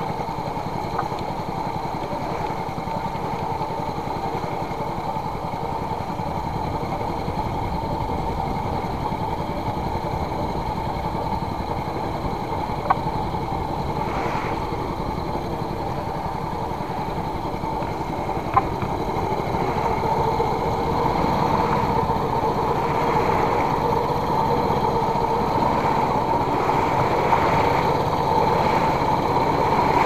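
Small fishing boat's engine running steadily while underway, getting a little louder about two-thirds of the way in, with a couple of short sharp knocks on the boat.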